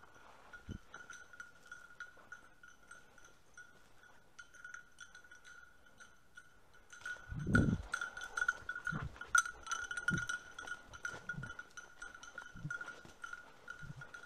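A hunting dog's bell ringing steadily and jingling as the setter moves through the cover. From about seven seconds in, heavy low thuds of the hunter's footfalls come in, the loudest one first.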